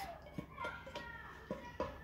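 Faint scraping and a few light taps of a wooden spoon pushing thick sauce out of a pan into a plastic blender jug.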